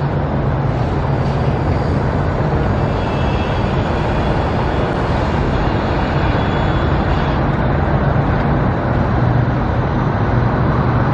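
Steady low rumble of motor vehicle engines, with a constant deep hum and no sudden events.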